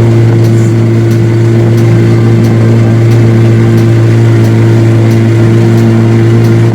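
Tourist boat's engine running steadily at an even pitch, a loud low hum with faint regular ticking.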